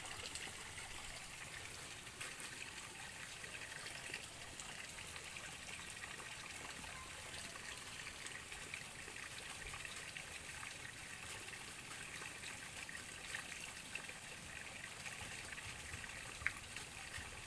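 Faint, steady trickle of water, with a few small ticks and one sharp click near the end.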